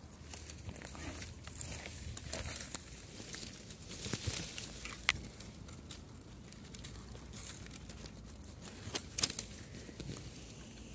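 Dry grass stems and twigs rustling and crackling in irregular small clicks, with a louder patch about four seconds in and a sharp snap about nine seconds in.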